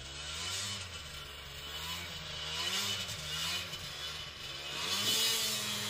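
Buran snowmobile engine revving up and down repeatedly as it breaks a trail through deep snow, rising to its loudest about five seconds in.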